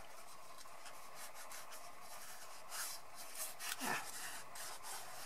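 Fingers rubbing decorator's tape down along a glued edge: soft, quiet rubbing and rustling, with a few slightly louder scrapes about three to four seconds in.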